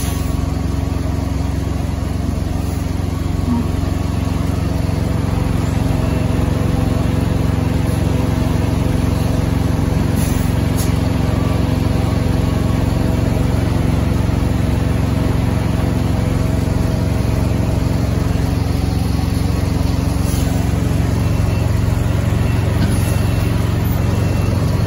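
Diesel semi-truck engines running at idle, a steady low rumble.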